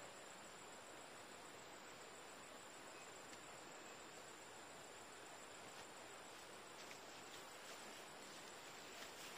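Near silence: a faint even outdoor hiss with a steady, high-pitched insect trill.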